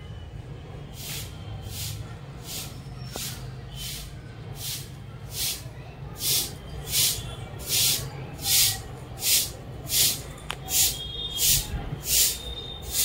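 Rhythmic swishing hiss, a short stroke roughly every three-quarters of a second, growing louder from about six seconds in, over a low steady background hum.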